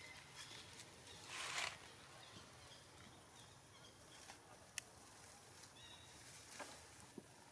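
Near silence: quiet outdoor ambience with a short rustle about a second and a half in, a few faint high chirps, and two sharp ticks later on.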